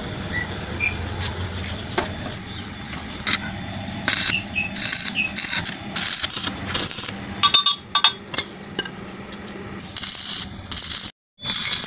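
Stick (arc) welder tacking a steel plate onto a rear axle tube: several short spells of crackling, sizzling arc, each well under a second to about a second long, beginning about three seconds in, with a last longer spell near the end.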